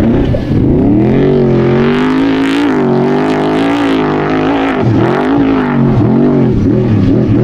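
Trophy truck race engine revving hard: the pitch climbs in the first second or so and holds high, then drops and climbs again several times near the end as the throttle is lifted and reapplied.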